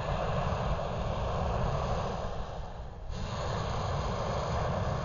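Hot air balloon's propane burner firing in a steady blast. It cuts off just before the three-second mark and fires again at once, over a low wind rumble on the microphone.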